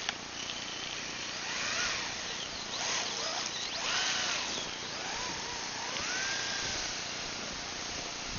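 Electric motor of a radio-controlled model on a three-cell LiPo, whining up and down in pitch several times as the throttle is opened and eased off, over a steady hiss.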